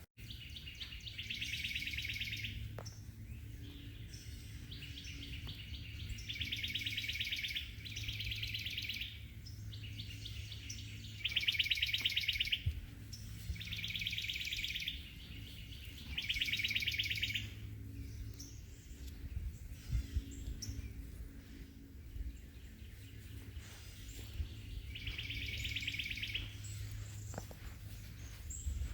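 A songbird singing a rapid trill, each trill about a second long and repeated every two to three seconds, over a steady low hum.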